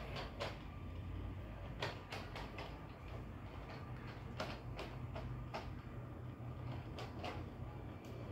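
LEGO 60337 Express Passenger Train running on plastic track under its Powered Up motor: a steady low hum, with the wheels clicking irregularly over the track joints, a dozen or so clicks in all.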